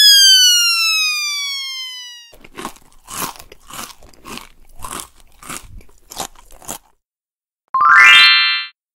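Cartoon eating sound effects: a falling whistle tone, then crunchy munching at about two bites a second for some four seconds as the animated dog eats its food, and a short rising tone near the end.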